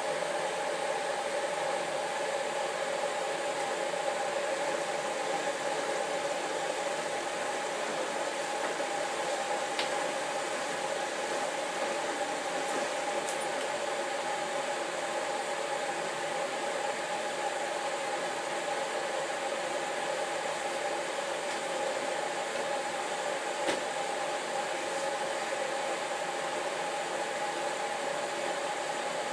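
Samsung Ecobubble WF1804WPU front-loading washing machine running its prewash with a load of laundry in the turning drum: a steady hum with two held tones.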